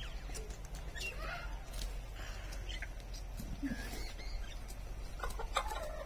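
Farmyard fowl clucking in short, scattered calls, with a few sharp clicks near the end.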